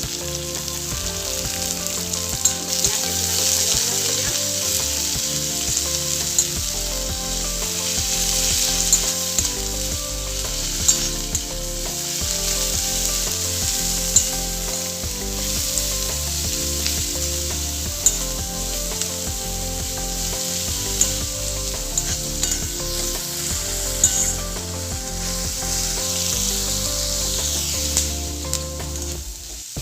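Onions frying in refined oil in a pan with a steady sizzle, stirred with a spatula that clicks sharply against the pan now and then.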